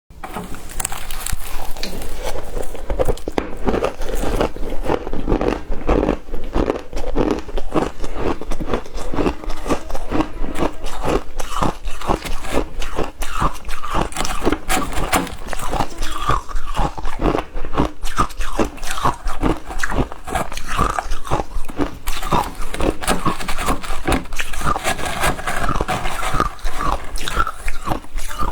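Ice being bitten and chewed close to the microphone: a loud, continuous run of rapid crunches and crackles, several a second.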